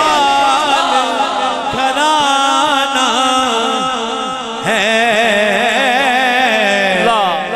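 Male naat reciter singing a long, ornamented melodic phrase into a microphone, the pitch wavering and gliding in drawn-out runs.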